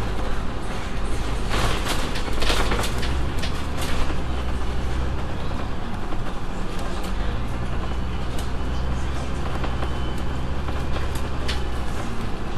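Double-decker bus running along the road, heard from inside: a steady low engine hum with road noise, and a few body rattles about two seconds in.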